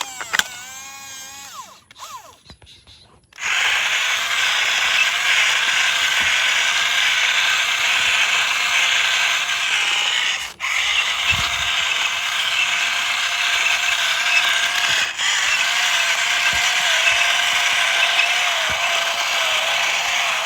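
Small electric motor and gearbox of a toy remote-control car whirring steadily as it drives. The whir starts a few seconds in and cuts out twice, very briefly.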